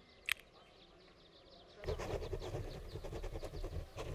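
Faint insects chirping, a brief sharp click a moment in, then from about two seconds in a loud, pulsing animal bleat that runs on past the end.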